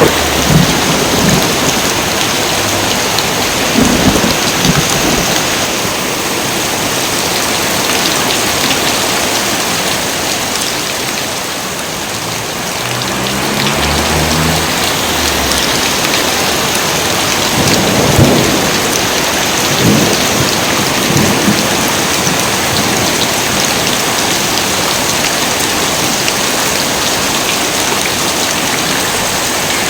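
Heavy rain pouring steadily, with thunder rumbling over it: rolls near the start and around four seconds in, a low rumble in the middle, and a louder cluster of cracks and rumbles around eighteen to twenty-one seconds in.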